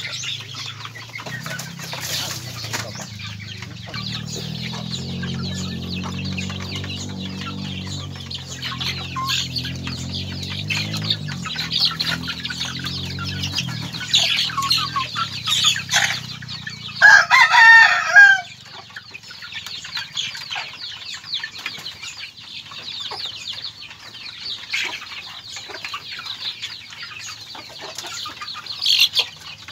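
Native chickens clucking and calling, with one loud rooster crow of about a second and a half just past the middle.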